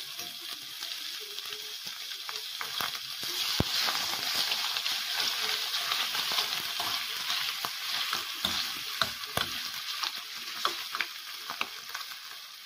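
Thin strips of marinated beef sizzling in hot oil in a stainless steel pan, stirred with a utensil that clicks and knocks against the pan. The sizzle swells a few seconds in and fades toward the end.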